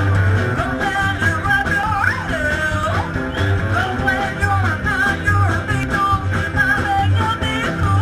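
Live rock and roll band playing: a woman sings the melody over electric guitar, a pulsing upright-bass line and steady drums.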